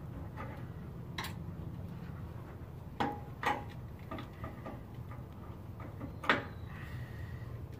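Scattered clicks and knocks of hands and tools working on metal fuel-line parts along a bare truck frame: four louder knocks and several fainter ticks over a low steady hum.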